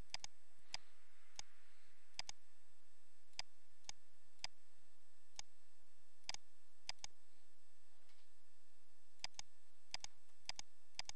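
Computer mouse buttons clicking: irregular single and paired clicks, roughly one every half second to a second.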